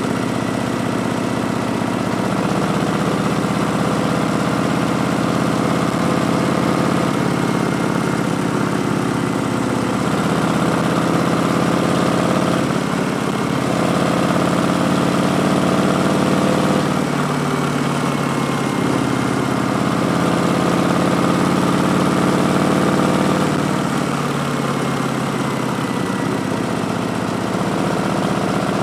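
Harley-Davidson Street Bob's Milwaukee-Eight V-twin running through Vance & Hines Twin Slash slip-on mufflers. Its pitch shifts several times as the throttle changes, at roughly a third of the way in, halfway and about three-quarters through.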